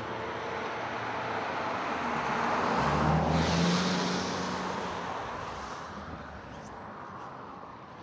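A car passing by, growing louder to a peak about three seconds in and then fading away.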